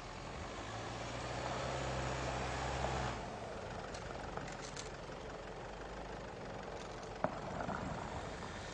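A vehicle engine running with a steady low hum that builds over the first three seconds and then drops back about three seconds in, with a single sharp click a little after seven seconds.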